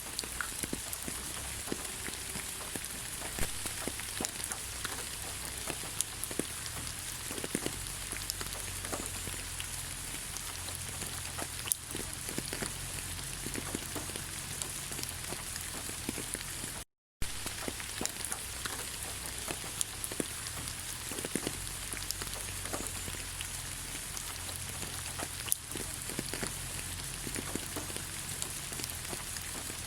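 Steady rain falling on leaves, an even patter with many separate drops ticking through it. About halfway through the sound cuts out completely for a fraction of a second, then resumes.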